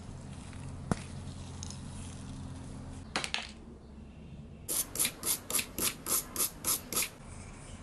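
A small brush scrubbing a small knurled metal toy part in quick back-and-forth strokes, about nine strokes at roughly four a second, starting past the middle. Before that come a single sharp click and a short scrape.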